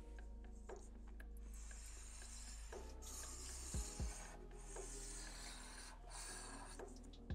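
Black marker pen scratching across paper in long drawing strokes, with two soft knocks about four seconds in.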